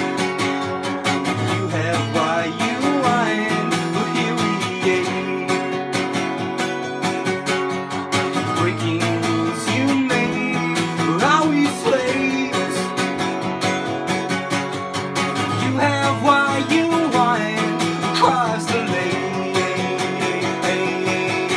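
Steel-string acoustic guitar strummed steadily through an instrumental passage of a folk song, with a few short wordless vocal phrases over it.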